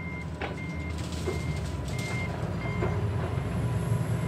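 A vehicle's reversing alarm beeping steadily, about one and a half short high beeps a second, over a low engine rumble. The beeping stops about three seconds in while the rumble continues.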